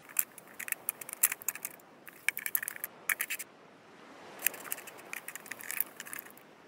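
A small crab scuttling over sand and mud: quick clusters of dry clicks and scratches in two spells, with a pause of about a second in the middle.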